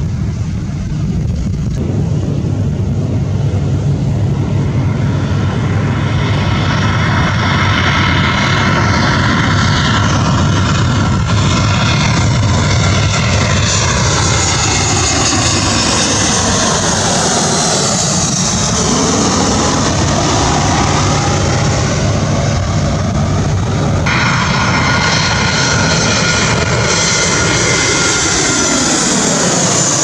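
Twin-engine jet airliners passing low overhead on final approach, one after another: a loud jet engine roar with a high whine whose pitch sweeps down as each plane goes over. It opens with a low rumble from a landing jet rolling out, and the sound changes abruptly about two-thirds of the way in as the next plane takes over.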